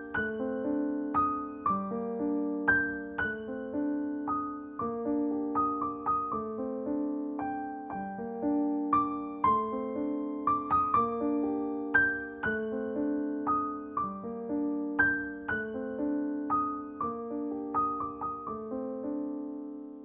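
Background piano music: a gentle piece of struck notes in a steady, repeating pattern of broken chords.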